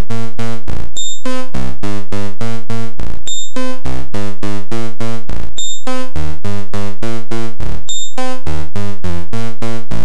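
Loud synthesizer sequence from a VCV Rack software modular patch: a steady run of short pitched notes, about four or five a second, with a brighter, harsher hit about every two and a quarter seconds. The note pitches and the oscillator's wave shape are being set live by turning hardware MIDI knobs.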